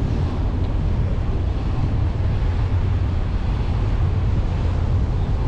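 Car driving at low speed, a steady low rumble of engine and tyres on the road mixed with wind on the microphone.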